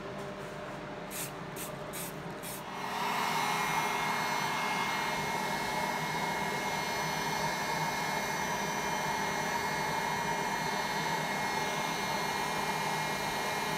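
Four short high hisses, then about three seconds in an electric heat gun switches on and runs steadily with a loud airy blowing, blowing hot air over the chair's freshly touched-up wood finish.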